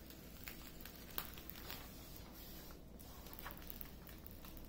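Faint rustling and soft crackles of the protective release paper being peeled up and folded back off a diamond painting canvas, a few scattered handling noises rather than a steady sound.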